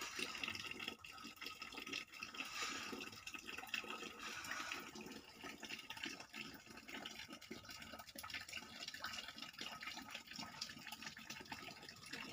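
Faint water dripping and trickling into a shallow plastic tray that holds water: artificial rain falling from a model cloud, heard as an even splashy hiss scattered with small irregular drips.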